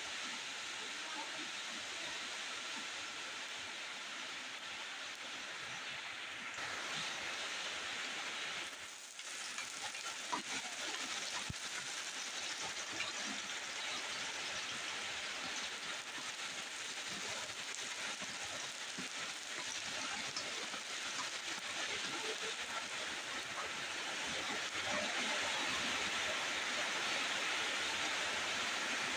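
Food frying in hot oil in a pan: a steady sizzling hiss with small crackles, dipping briefly about a third of the way in and growing a little louder near the end.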